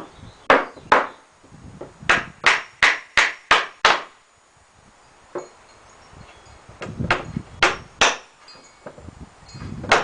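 Hammer driving nails into pallet-wood boards: sharp blows in quick runs of about three a second, with pauses between the runs.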